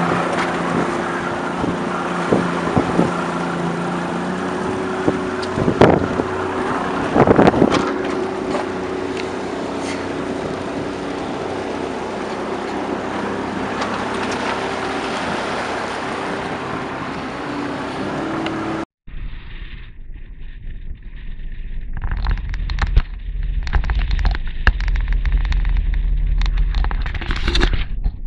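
Small motorboat's engine running at a steady speed, with a couple of knocks about six and seven seconds in. After a cut, heavy wind buffeting on the microphone and a low rumble take over as the boat moves over the water.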